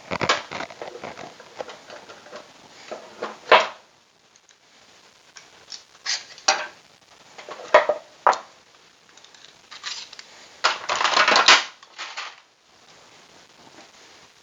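Parts of a wooden table saw sled being handled during assembly: irregular knocks and clinks, with a longer rattle near the end.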